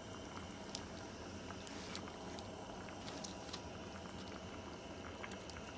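Large pot of soup simmering on a gas stove: a faint, steady bubbling with scattered small pops.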